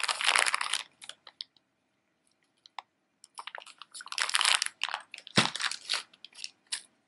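Clear plastic zip-top bag crinkling as it is handled, with a bundle of thin metal bangles inside; two bursts of crackling with a quiet pause of about two seconds between.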